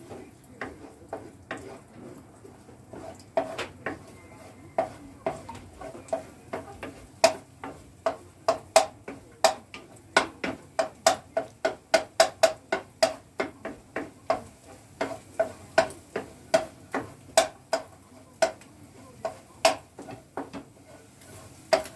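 Wooden spatula knocking and scraping against a frying pan as scrambled eggs are stirred and broken up. The sharp knocks come irregularly, sparse at first and quickest through the middle, at about two or three a second.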